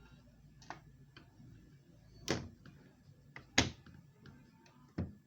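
A handful of short knocks and clicks at irregular intervals, the loudest about three and a half seconds in.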